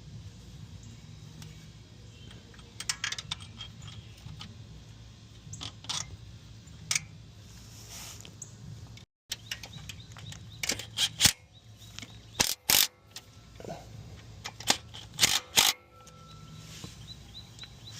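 Hand tools and metal parts clinking and clanking as starter bolts are fitted and tightened: irregular sharp metallic clicks, busier in the second half, over a low shop hum.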